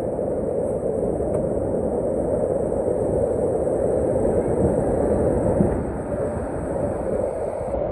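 Steady roar of a large waterfall, a dense even rush with no breaks.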